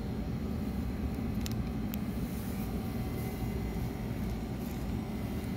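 Steady low background rumble, with two faint clicks about a second and a half and two seconds in.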